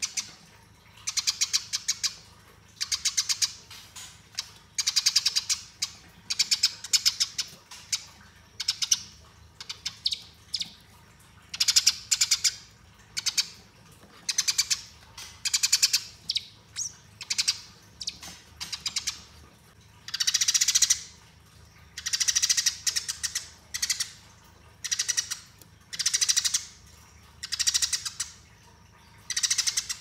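Eurasian tree sparrow chirping in fast, rattling rolls, bout after bout with short gaps between them. This is the rolling 'fighting' call of a tree sparrow.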